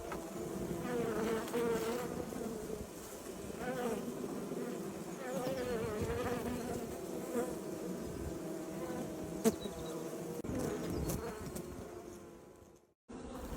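Bees buzzing, several at once, a hum that wavers up and down in pitch and fades out near the end.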